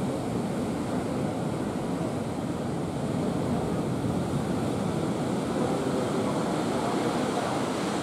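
Big sea waves rolling in and breaking on the shore, a steady rush of surf.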